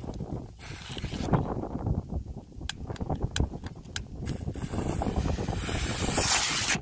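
A firework hissing and fizzing as it sprays sparks and smoke over pond water, growing louder over the last two seconds and stopping suddenly. A few sharp clicks come before it, with wind rumbling on the microphone throughout.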